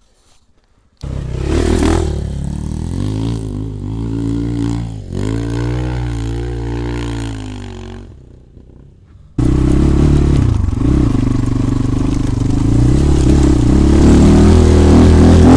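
Engine of an off-road vehicle being ridden, revving up and down. It starts suddenly about a second in, drops out briefly about eight seconds in, and comes back abruptly and louder about nine seconds in, running at higher revs to the end.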